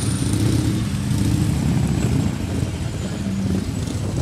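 Cruiser motorcycle engines running at low revs, a loud, steady low rumble with an uneven pulse as the bikes idle and roll slowly past.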